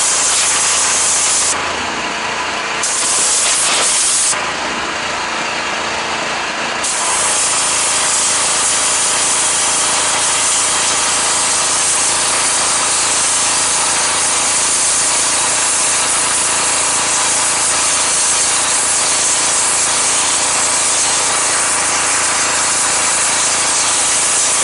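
Engine-driven pressure washer running steadily while its high-pressure jet sprays into a piece of wood: a loud, continuous hiss of spray over the engine's steady hum. The spray hiss drops off briefly twice in the first few seconds.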